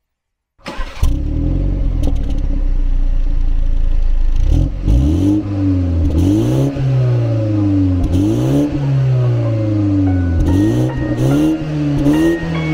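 A 2021 BMW 430i's 2.0-litre turbocharged four-cylinder engine runs with the car standing still. From about four seconds in it is revved repeatedly, with about six quick rises and falls in pitch.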